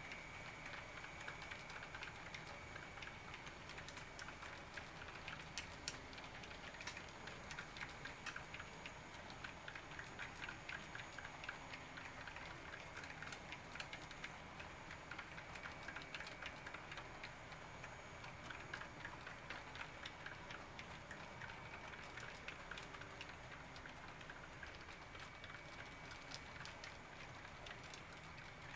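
Model railroad freight cars rolling past: a faint, rapid, uneven clatter of small clicks from their wheels running over the track, with a faint steady high whine underneath.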